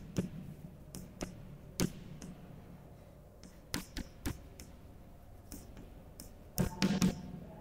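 Chalk tapping and scraping on a blackboard as words are written, a string of sharp irregular taps with a quick cluster near the end.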